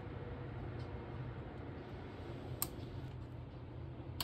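Amazon Basics laptop cooling pad's fans running with a steady low whir, broken by two sharp clicks, one about two and a half seconds in and one at the very end.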